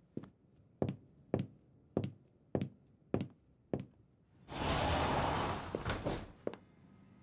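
Footsteps of heeled shoes clicking on a hard floor at a steady pace, about two steps a second. About four and a half seconds in, a door opens with a loud rush of noise lasting under two seconds, followed by a couple of fainter steps.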